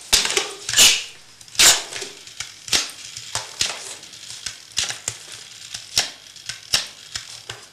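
A run of sharp, irregular clicks and knocks, about one loud one a second with fainter ones between, like a small object being handled.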